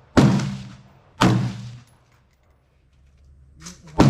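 Three gunshots, each with a short ringing tail: two about a second apart near the start, then a pause of nearly three seconds and a third near the end.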